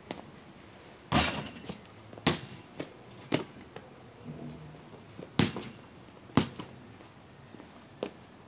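Basketball bouncing on a concrete driveway: single sharp thuds at uneven spacing, most of them about a second apart.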